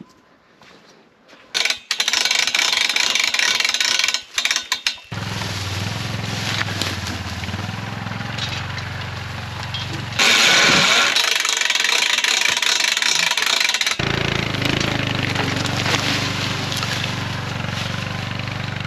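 An ATV (quad) engine running steadily while it drags logs on a small log-hauler trailer through the bush, heard in several cuts. At times a loud rushing noise without the engine hum takes over.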